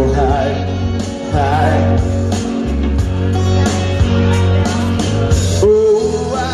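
Live rock performance: a man sings into a microphone over amplified accompaniment with guitar and a steady bass, holding one long note near the end.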